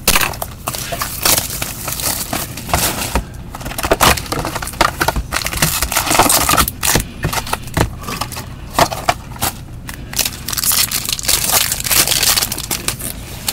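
Plastic wrapper of a trading-card pack being torn open and crinkled by gloved hands, a dense run of irregular crackles and rustles.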